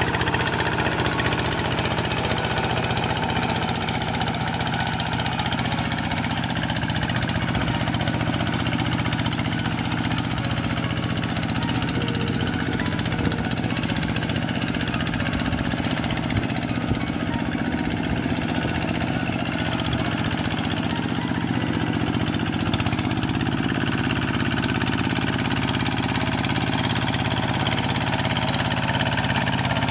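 Two-wheel hand tractor's single-cylinder diesel engine running steadily as the tractor plows a flooded rice paddy.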